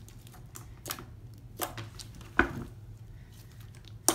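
Hands kneading and squeezing dry slime with toilet paper worked into it, making irregular sticky pops and clicks, the loudest about two and a half seconds in and at the end.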